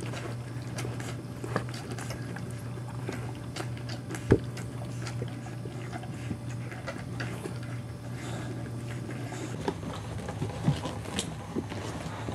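Boxer puppies and a small dog scrabbling about a carpeted ledge: scattered light clicks and scuffs of paws and claws, with a sharp knock about four seconds in, over a steady low hum.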